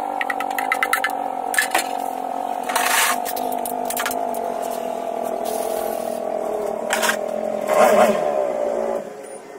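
A steady motor hum that slowly sinks in pitch and stops about nine seconds in, with scattered clicks and clatter and two short bursts of hiss, about three and eight seconds in.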